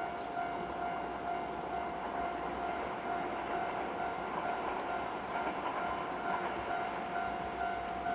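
Level-crossing warning bell ringing steadily as a JR 103 series electric train approaches, with the rumble of the train underneath.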